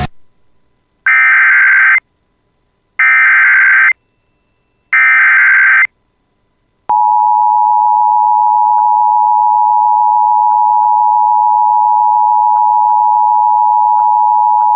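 Emergency Alert System activation: three SAME header data bursts, each a harsh warbling digital screech about a second long with a second's gap between them. About seven seconds in, the steady two-tone EAS attention signal starts and holds.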